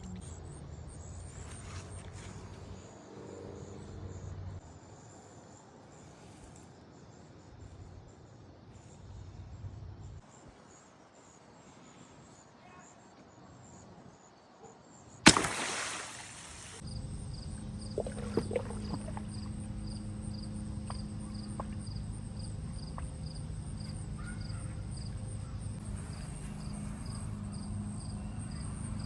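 A single sharp, loud bang about halfway through, trailing off in about a second and a half of noise: a small explosion. After it, a steady low hum with a faint high chirp repeating about twice a second.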